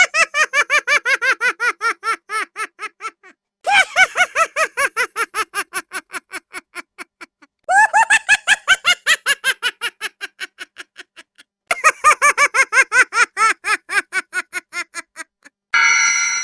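A high-pitched laugh, a rapid run of "ha" pulses at about five a second that fades away over some three seconds, played four times in a row. A bell-like ding begins right at the end.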